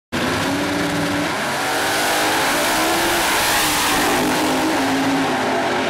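Two drag race cars launching side by side at full throttle, a loud, steady engine roar whose pitch climbs and steps down several times as the cars shift gears.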